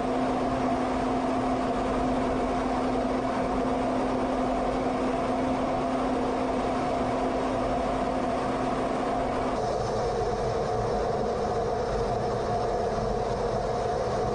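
Steady cockpit noise of a fighter jet in flight: engine and airflow rushing with no letup. A steady hum runs underneath and cuts off suddenly about two-thirds of the way through, where the noise changes slightly in tone.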